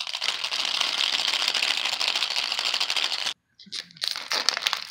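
Plastic shrink-wrap on a toy capsule ball being scratched and worked loose by fingers: a steady rustling hiss that cuts off suddenly about three seconds in, followed by irregular crinkling and crackling of the plastic.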